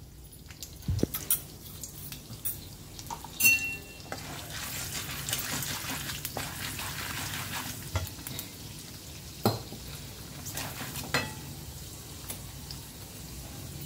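Chana dal and mustard seeds frying in hot oil in an iron kadai for a tempering, the sizzle growing louder about four seconds in. A wooden spatula stirs them, now and then clicking and scraping against the pan.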